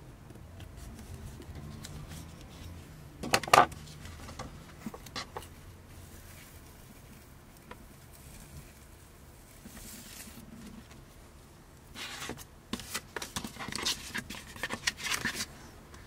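Handling noises of a carbon-fibre-pattern vinyl sheet and masking tape being pressed down, peeled and lifted off a cutting mat: one sharp rustle about three and a half seconds in is the loudest, and a run of short rustles and clicks comes near the end.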